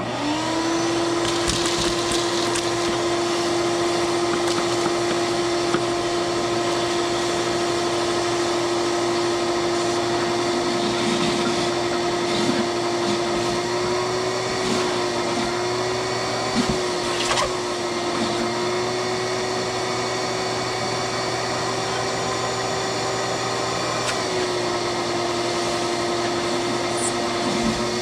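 Vacuum cleaner switches on abruptly and runs steadily, vacuuming a mouse nest out of a mini excavator's air filter housing; its motor tone wavers a little in pitch midway as the airflow changes.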